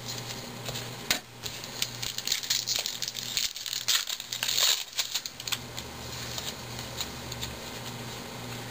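A foil trading-card pack wrapper being torn open and crinkled: a dense run of crackles for a few seconds, then quieter rustling of the cards being handled.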